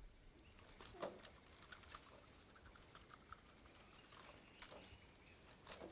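Near silence: a faint steady high-pitched whine with a few soft scattered clicks and taps.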